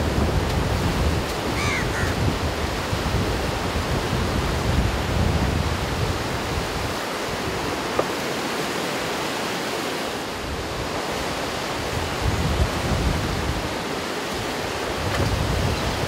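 Ocean surf breaking and washing up the beach in a steady rush, with wind gusting on the microphone as a low rumble that eases off in the middle and returns near the end.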